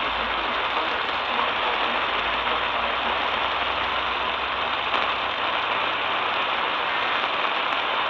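Steady AM radio static: hiss from a portable Eton Elite Traveler receiver tuned to 1260 kHz medium wave, with no audible programme. There is a faint crackle about five seconds in.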